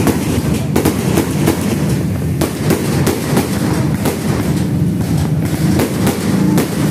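Aerial fireworks going off overhead: a run of sharp bangs and crackles, one about every half second to a second, over a steady low background rumble.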